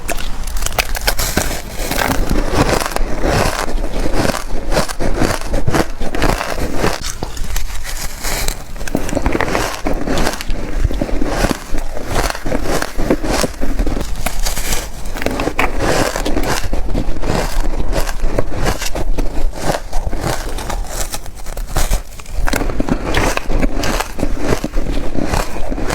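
Close-up crunching of reshaped (refrozen) ice being bitten and chewed: a dense, continuous run of crackling crunches with a couple of brief pauses.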